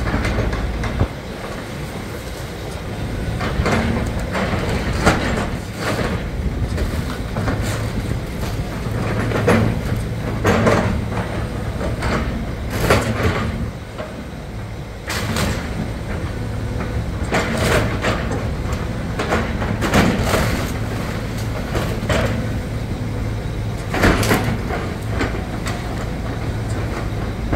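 Tracked excavator's diesel engine running steadily, with a dozen or so sharp crashes and cracks of splintering wood and falling debris as it tears into the house.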